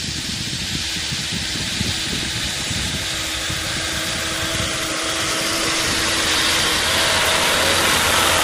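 Massey Ferguson 6475 tractor's six-cylinder diesel engine running steadily under load while pulling a plough, getting louder as the tractor comes up close.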